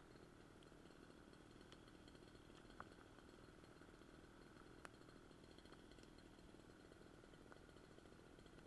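Near silence: a faint steady background hum with a couple of small clicks.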